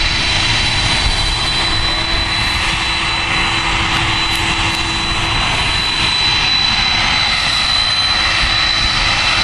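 Boeing 747 jet engines running steadily: a continuous rushing noise with a high, steady whine.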